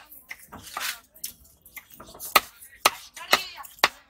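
Cleaver chopping hamour (grouper) flesh against a wooden chopping block: about six sharp chops, unevenly spaced.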